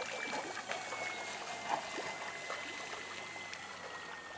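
Thin, distant whine of the E-flite Carbon Cub SS's electric motor, slowly dropping in pitch as the float plane throttles back to land. Under it, small water trickling and lapping sounds.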